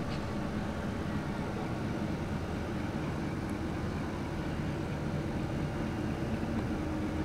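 A steady low hum and rumble with faint steady tones in it, one tone a little clearer near the end.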